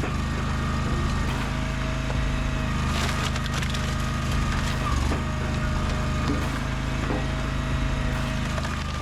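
Firewood processor running: a steady engine hum, a higher whine that comes and goes as the machine works, and a few sharp cracks as wood splits.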